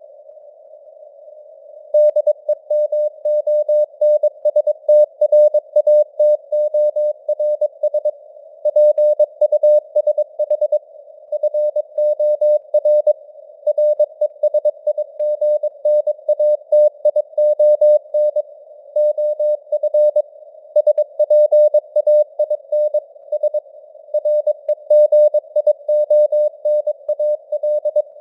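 Morse code (CW) sent at 22 words per minute: a mid-pitched beep keyed on and off in dots and dashes over a narrow band of simulated radio hiss. There are short pauses between words, the first lasting about two seconds at the start.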